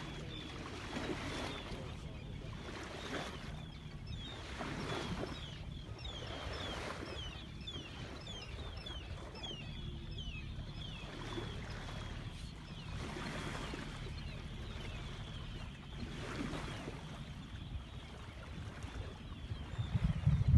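A sailing yacht under way: water swishes along the hull in surges every couple of seconds over a steady low hum. Through the first half there is a run of short, high, falling chirps.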